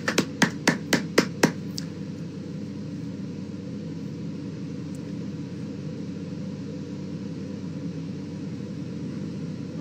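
Hand clapping, about eight quick claps at roughly four a second, stopping about two seconds in, then a steady low hum with a faint hiss.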